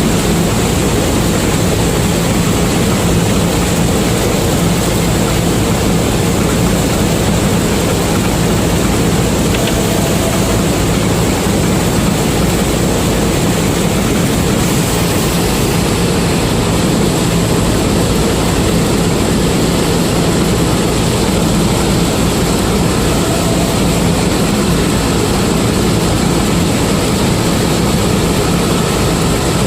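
Combine harvester's diesel engine running steadily, a constant loud drone with no change in pitch.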